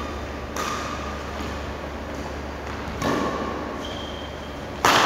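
Badminton racket strikes on a shuttlecock during a rally, echoing in a sports hall: three sharp hits, the last near the end the loudest.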